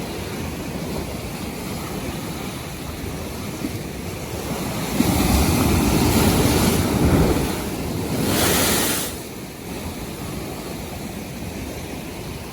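North Sea waves washing and breaking, with wind rumbling on the microphone. A heavier rumble of surf comes about five seconds in, followed by a hissing wash about three seconds later.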